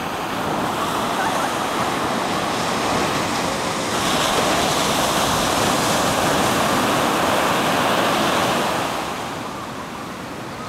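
Ocean surf, waves breaking and washing in: a steady rush that swells about four seconds in and eases off near the end.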